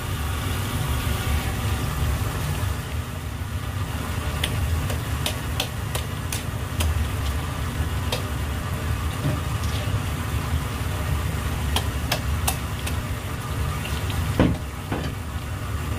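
A stream of running water splashes onto a large black sea bream on a plastic cutting board, over a steady low engine-like hum. Scattered clicks and knocks come from the fish and tools being handled, with a louder knock near the end.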